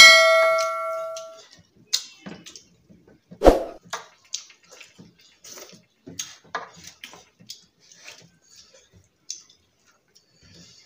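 Close-up eating sounds of hands mixing rice and curry on plates, with chewing and small wet smacks and clicks. It opens with a ringing clink of something struck against a plate that fades over about a second and a half, and there is a single thump about 3.5 seconds in.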